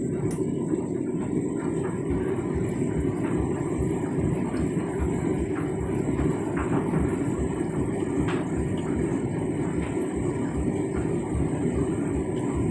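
Candy Grand'O Vita front-loading washing machine running a rinse cycle with an empty drum: a steady, low churning rumble with uneven low thuds.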